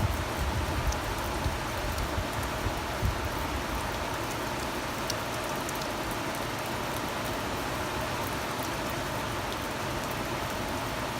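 Steady rain falling, an even hiss with a few scattered drop ticks. A low buffeting of wind on the microphone dies away in the first few seconds.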